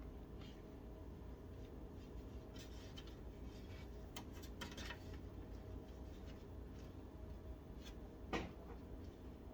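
Faint clicks and rustling of computer cables being handled and tucked inside a PC case, over a steady low hum, with a louder knock near the end.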